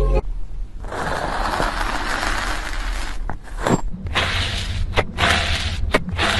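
A hiss, then a thin metal blade pushed into fine dry sand in a glass: a grainy crunching scrape, with a sharp tick as each cut goes in, about once a second in the second half.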